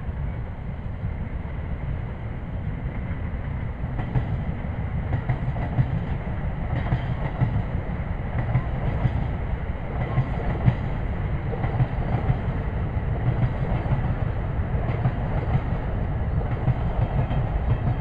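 Strong wind buffeting the microphone: a heavy, steady low rumble, with a broader rushing noise that grows louder about four seconds in.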